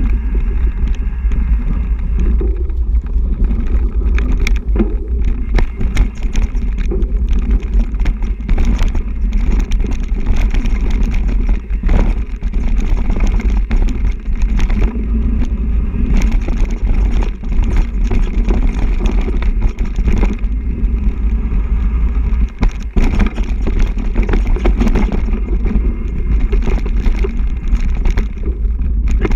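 Mountain bike ridden fast over a dirt and gravel trail: a steady low rumble of wind and tyres, with frequent knocks and rattles as the bike chatters over rough ground.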